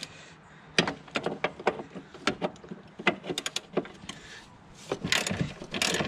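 Socket wrench and metal tools clicking and clinking on the driver's-side engine mount bolt of a Mk1 Volkswagen Rabbit as it is loosened: a run of sharp, irregular clicks, with a brief quick rattle of ratchet clicks near the end.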